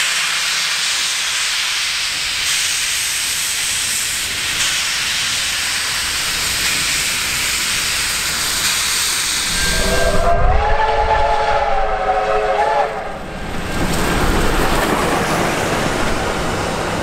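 R Class steam locomotive venting steam with a loud, steady hiss. About ten seconds in, its whistle blows for roughly three seconds, several notes sounding together. Near the end the hiss gives way to a duller, lower steady rumble.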